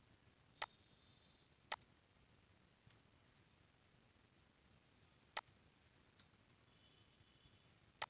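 Computer mouse clicking, about half a dozen sharp, separate clicks a second or more apart over faint room tone.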